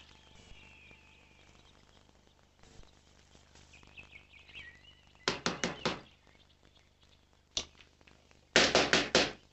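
Knocking on a glass-paned front door: a quick run of four knocks, a single knock, then a run of five near the end.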